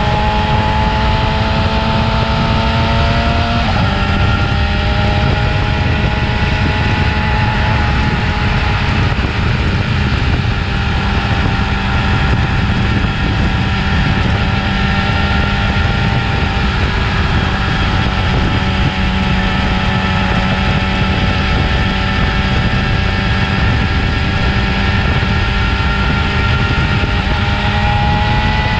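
Yamaha R6 motorcycle's inline-four engine on its stock exhaust, running continuously at fairly steady revs. Its pitch steps down suddenly about four seconds in, then stays nearly level and climbs slowly near the end.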